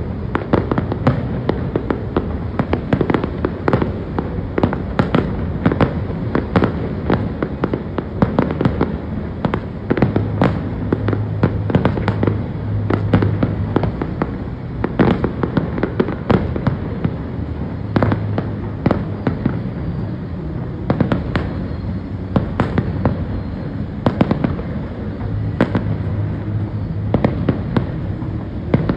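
Aerial fireworks display: shells bursting in a dense, unbroken run of bangs, several a second.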